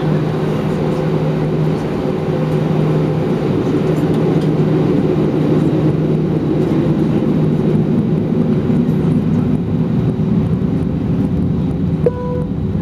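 Steady drone of an Airbus A320's engines, with a short chime sounding about twelve seconds in.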